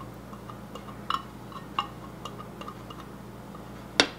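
A spatula scraping and tapping green chilies out of an opened tin can: a string of light, irregular clicks, with two sharper knocks near the end.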